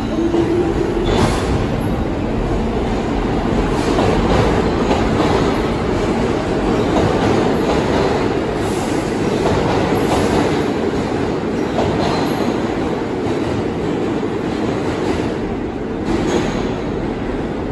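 R46 subway train rolling along the station platform, its wheels rumbling on the rails with sharp clicks over the rail joints every second or two. Near the end another subway train is heard coming into the station.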